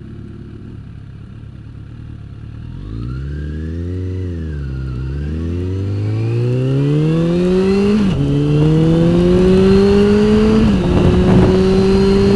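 Motorcycle engine ticking over quietly, then revving as the bike pulls away and climbs through the gears, its pitch rising and dropping at each of two upshifts in the second half. Wind noise builds as speed rises.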